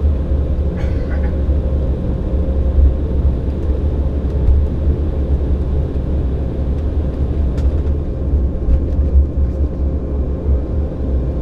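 Steady cabin noise inside an Embraer 195 airliner: a deep, even rumble from its General Electric CF34 turbofans and airframe, with a steady hum above it.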